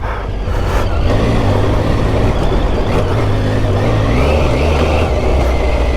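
2012 Triumph Tiger 800 motorcycle's three-cylinder engine running steadily while riding a rough dirt track, with wind and tyre noise; the revs rise a little about four seconds in.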